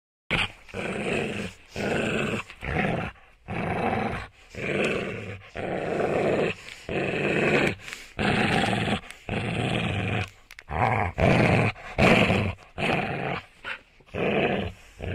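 A dachshund puppy growling at its own reflection in a mirror: a long run of short, rough puppy growls, one after another with brief pauses between them.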